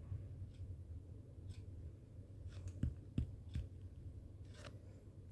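A few scattered clicks from computer keys and a mouse, the loudest pair about three seconds in, over a low steady hum.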